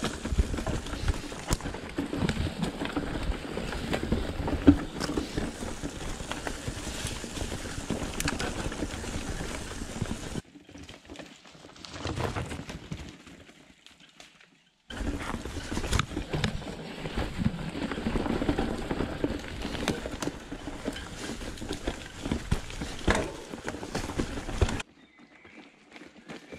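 Mountain bike ridden over a leaf-covered forest trail with roots: tyres rolling and the bike rattling, close on the bike's camera. The noise drops to a much quieter stretch about ten seconds in, comes back about five seconds later, and drops again near the end.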